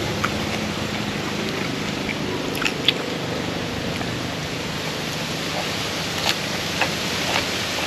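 A person eating, with a few short sharp clicks and smacks scattered over a steady background hiss.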